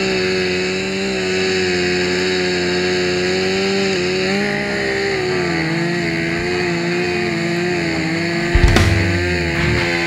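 Chainsaw running at full throttle while cutting a ventilation opening in a burning roof, its pitch dipping slightly several times as the chain bogs in the cut. A loud thump comes near the end.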